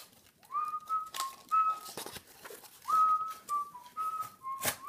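Someone whistling a short tune of held notes with small steps in pitch, over light clicks and scraping of a pocket knife cutting through corrugated cardboard.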